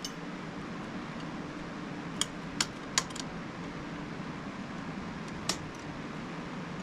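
A handful of sharp metallic clicks and taps, about five, bunched in the middle and one more a couple of seconds later, as a steel hinge pin and the spring-loaded door hinge are worked to line them up. A steady background hiss runs underneath.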